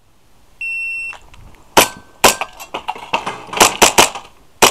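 An electronic shot-timer beep, held for about half a second, sounds the start signal, then a custom Hi-Capa 5.1 gas blowback airsoft pistol fires a quick string of about six loud sharp shots, with fainter clicks between them.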